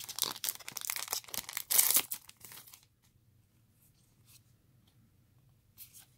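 Trading-card booster pack wrapper being torn open by hand: a dense crinkling rip lasting about three seconds, loudest just before it stops. A few faint clicks of the cards being leafed through follow.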